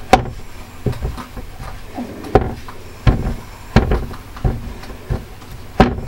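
Metal fork tines pressing through the edge of a puff-pastry pie lid onto a wooden chopping board, crimping it shut: a sharp tap on the wood about every two-thirds of a second, nine or so in all.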